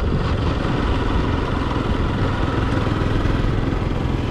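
Motorcycle engine running steadily while the bike is ridden along the road.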